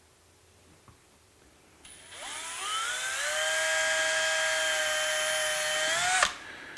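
Power drill running: quiet at first, then about two seconds in the motor spins up with a rising whine. It holds a steady high pitch for a few seconds and stops abruptly near the end, as it drills a small pilot hole or drives a self-tapping screw.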